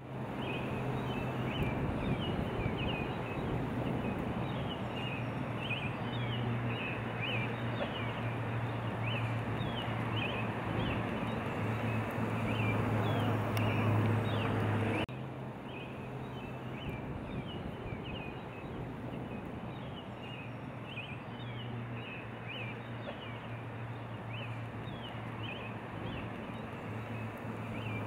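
Nature soundscape of short high bird chirps repeating over a steady rushing background with a low hum. About halfway through it cuts abruptly to a quieter stretch of the same kind of sound.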